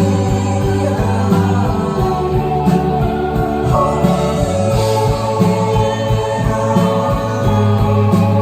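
Live indie rock band playing a song, with a steady drum beat under sustained bass and guitar chords.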